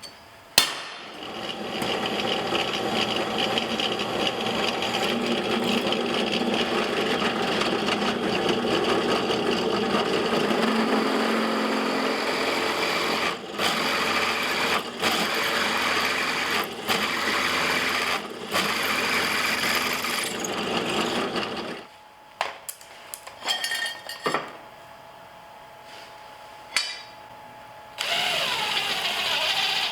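A power tool running for about twenty seconds with a few very brief stops, then short bursts and clicks, and another run near the end.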